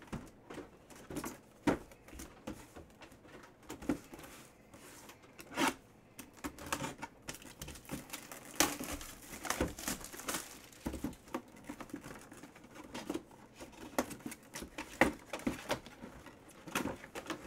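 Hands handling and opening a shrink-wrapped cardboard box: irregular taps and knocks on the cardboard with crinkling and tearing of the plastic wrap.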